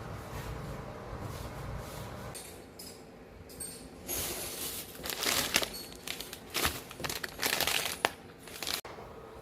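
Crinkling and rustling in a run of loud bursts over the second half, like something being handled in its wrapping, after a low rumble in the first couple of seconds.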